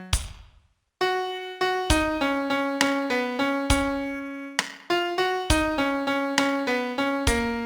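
Piano sound playing a single melody line note by note in 6/8 time. A held note dies away, there is a short silence, and the melody starts again about a second in at the start of the chorus.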